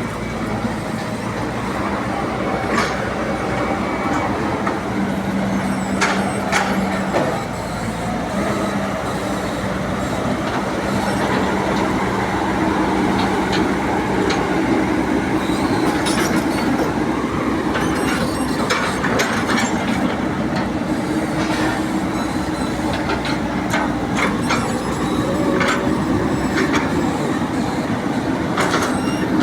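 Two pieces of heavy earthmoving equipment working, their diesel engines running steadily, with scattered sharp clanks from the machines.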